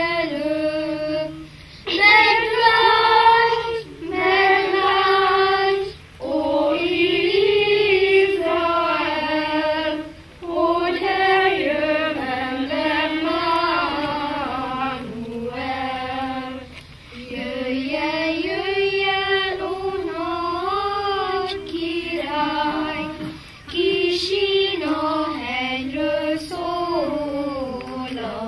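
A children's choir, joined by a few adult women, singing a song in unison in short phrases with brief breaks between them.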